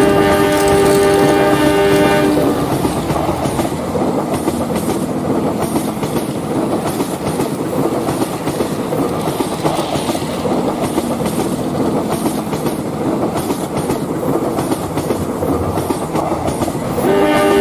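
A train horn sounds a steady chord for about two seconds, then the rumble and clatter of a train running on rails, with the horn starting again right at the end.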